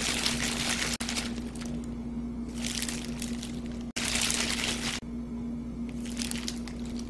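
Disposable plastic gloves crinkling and mashed sweet potato squishing as it is pressed into balls by hand, over a steady low hum. The sound cuts out abruptly a few times.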